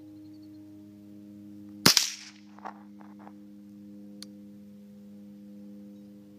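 Ruger 10/22 .22 rifle firing a single shot, a sharp crack about two seconds in that dies away quickly, followed by a few faint ticks and one small click a couple of seconds later.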